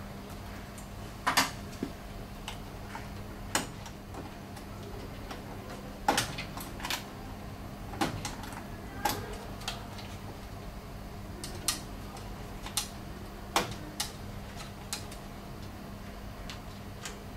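Irregular sharp clicks and light metallic taps from a screwdriver working screws in a photocopier's sheet-metal frame, over a steady low hum.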